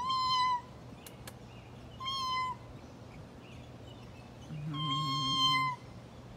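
A cat meowing three times: two short, steady calls about two seconds apart, then a longer one of over a second.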